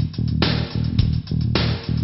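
Intro music with guitar and bass over a steady beat, with crashes about twice a second.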